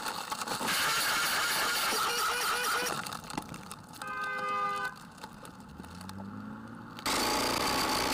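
Car sounds: loud cabin and road noise, then a car horn sounding once for about a second, and an engine revving up before the noise cuts back in abruptly.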